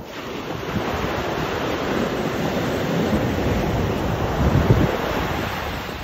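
Atlantic Ocean surf: a wave breaking and its foam rushing up the beach, a dense rushing that swells through the middle and eases near the end. Wind buffets the microphone underneath.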